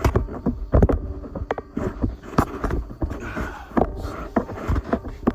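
Metal fittings and tools being handled at a pressurised hydraulic counterbalance cylinder: irregular sharp clicks and knocks, with a stretch of hissing about three to four and a half seconds in.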